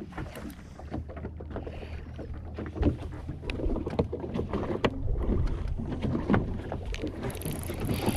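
A small fishing boat rocking in passing wakes, water slapping against the hull, with irregular knocks and clunks as the camera is knocked over and handled. Two louder thumps come about three and five seconds in.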